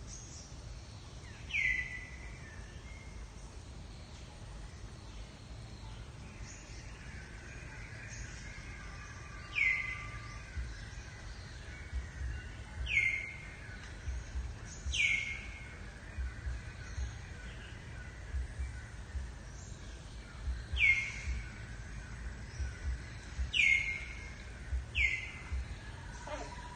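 A bird calling with short, sharp downward-sweeping chirps, about seven of them at irregular intervals, over a steady outdoor background.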